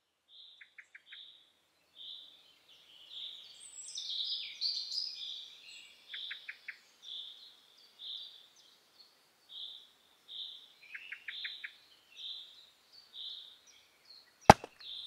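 Small birds calling: a short high note repeated about twice a second, with quick clicking trills three times. Near the end comes one sharp, loud knock, a hatchet striking wood.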